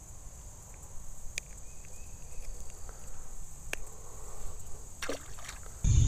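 Quiet pondside ambience: a steady high insect chorus with a few faint clicks and light water sounds while a small largemouth bass is handled. A sudden loud low rumble comes in just before the end.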